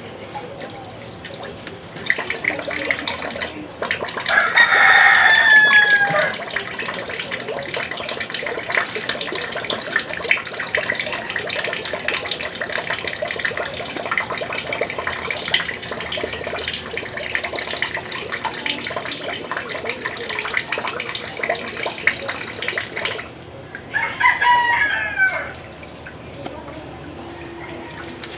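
Tap water running during hand washing, starting about two seconds in and cut off a little after twenty seconds. A rooster crows loudly over it about four seconds in, and crows again just after the water stops.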